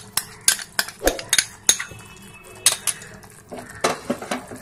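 Irregular clinks and taps of a spoon against a bowl and the rim of a metal cooking pot as a curd-and-poppy-seed paste is scraped out into the pot, several knocks close together at times.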